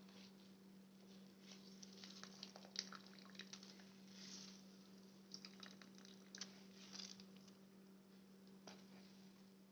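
Faint wet squelching and dripping from soaked soya chunks being squeezed out by hand, with a steady low hum underneath.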